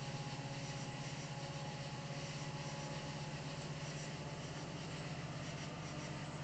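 Faint, steady low rumble of a distant diesel freight locomotive, with a thin steady tone over an even high hiss.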